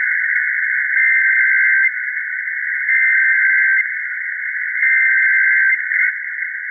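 Emergency Alert System SAME header: buzzy two-tone digital data bursts, three of them about a second long and a second apart, over a steady narrow hiss. A short blip follows near the end.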